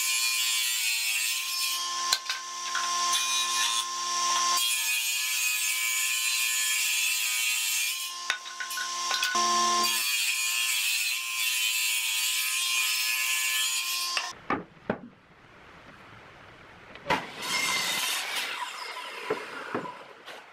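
Table saw running with a steady hum while its blade cuts wooden boards fed on a sled, in three long cuts with short pauses between them. About two-thirds of the way through the saw sound stops, leaving knocks and scraping of boards being handled.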